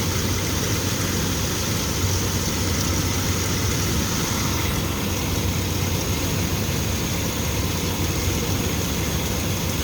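Ford Explorer engine idling steadily, running on the fuel left in the line after its fuel pump relay is pulled to bleed off pressure. The engine has an intermittent misfire that the owner blames on a clogged fuel filter.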